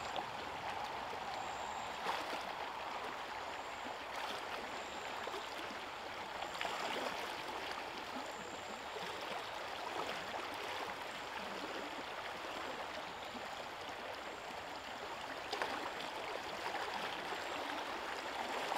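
Fast-flowing river current running over a shallow rocky riffle, a steady rushing of water. A few faint splashes come from a person wading thigh-deep against the current.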